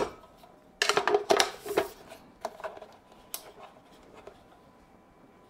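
A small honeycomb grid being dropped into a light's end cap and fitted: a sharp click at the start, a quick run of clattering knocks about a second in, then a few single clicks.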